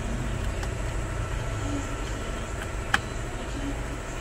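A plastic wiring connector snapping into a socket on the back of an aftermarket Android car stereo: one sharp click about three seconds in, over a steady low background rumble.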